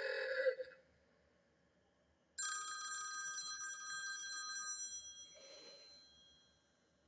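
iPad mini 4 ringtone previews through the tablet's speaker: one tone cuts off just under a second in, and about two and a half seconds in another ringtone begins, a bright sustained tone that slowly fades over about four seconds.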